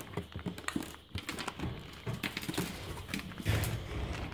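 Light, irregular clicks and taps of small hard items being picked up and set down on a tabletop, with a duller low knock about three and a half seconds in.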